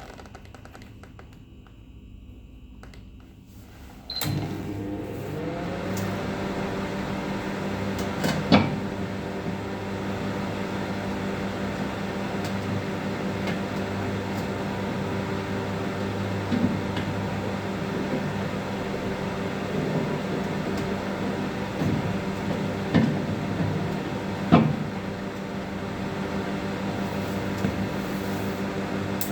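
Microwave oven switched on about four seconds in, then running with a steady electrical hum while its fan and turntable motor come up to speed. A few sharp clicks and knocks sound over the hum.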